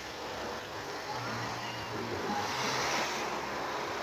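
A motor vehicle passing unseen, its noise swelling to a peak about three seconds in and then easing off, over wind noise.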